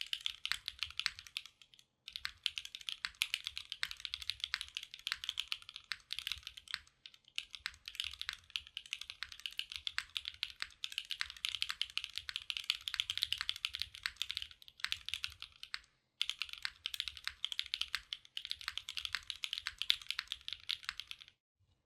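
Fast, continuous typing on a Kohaku R2 mechanical keyboard with Gateron Summertime switches on an aluminium plate and GMK keycaps: dense keystroke clacks with two brief pauses, about two seconds in and about sixteen seconds in, stopping shortly before the end.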